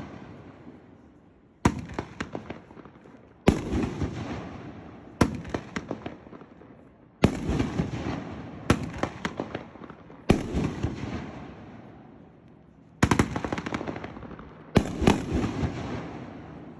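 A 9-shot rack of 2-inch Titanium Willow shells firing one shell at a time: eight sharp bangs come roughly every two seconds. Each bang is followed by a crackle that dies away.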